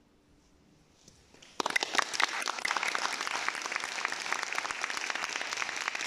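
Near silence after the piano falls quiet, then audience applause starts suddenly about a second and a half in and keeps going steadily.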